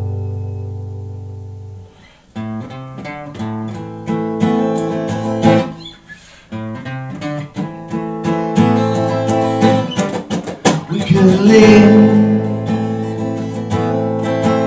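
Acoustic guitar strummed in chords: a chord rings out and fades over the first two seconds, then strumming starts again, breaks off briefly near the middle, and carries on.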